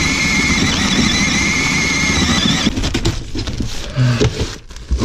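Power drill running hard with a steady high whine for about three seconds, boring through wood, then stopping; scraping and knocks follow as the work goes on.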